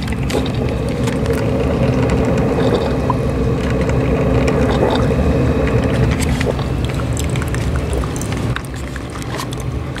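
Black & Decker DCM6 single-cup coffee maker brewing: a little boiling inside its heater and hot water running into the mug, a steady sound.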